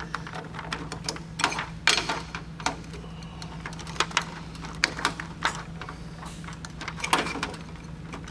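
Irregular clicks, taps and light knocks of an electrical box cover and its wiring being handled and pushed back into place inside a tankless water heater, over a steady low hum.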